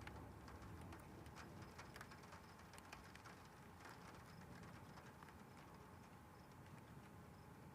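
Faint patter of light rain, with scattered drips ticking irregularly, as a thunderstorm dies down.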